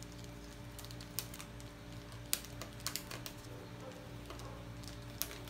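Scattered light clicks and taps as fingers handle the edge of a replacement laptop LCD panel, bunched in the middle and again near the end, over a steady low hum.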